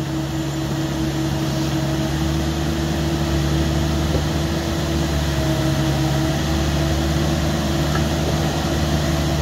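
Excavator's diesel engine running steadily, a constant low hum with no revving, under a steady wash of noise.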